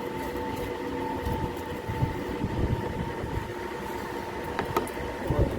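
Steady rumble of a moving vehicle heard from inside, with a constant whine running through it. There are a couple of light clicks about four and a half seconds in.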